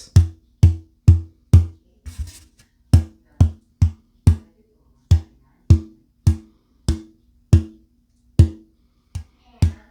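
Old-growth Adirondack (red) spruce acoustic-guitar top plate, not torrefied, tapped for its tap tone: sharp taps about twice a second, each a low knock followed by a brief pitched ring. To the luthier it sounds stiffer and harder.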